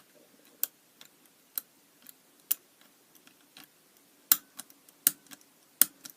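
Sharp, irregular metallic clicks of a lock pick and tensioner working the levers of a Squire 550 four-lever padlock, louder and closer together in the last two seconds.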